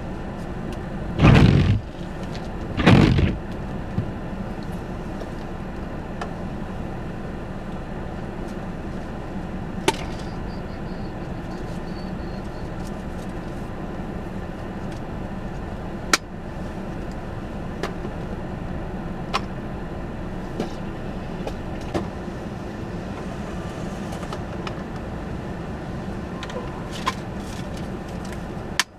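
Car running steadily as it is driven, a low hum with road noise. Near the start come two loud thumps about a second and a half apart, and later a few short sharp clicks.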